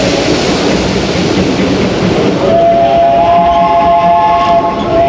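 Disneyland Railroad passenger train rolling along its track with a steady running clatter. About halfway through, a chord of several high, steady tones comes in and holds for a few seconds, and another starts near the end.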